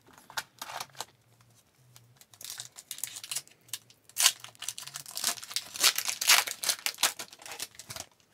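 A 2020-21 Upper Deck Extended Series hockey card pack's wrapper being torn open and crinkled by hand, with the cards pulled out near the end. It makes a run of sharp crackles that starts sparse and turns dense about halfway through.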